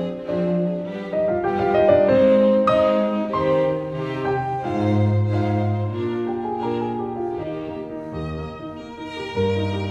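Classical background music: bowed strings with piano, a melody moving over low held bass notes.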